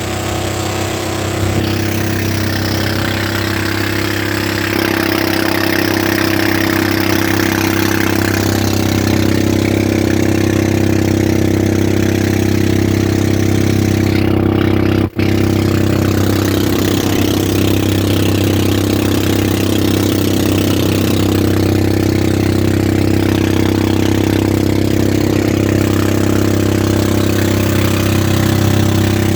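Boat engine running steadily at a constant speed. The sound drops out for an instant about halfway through.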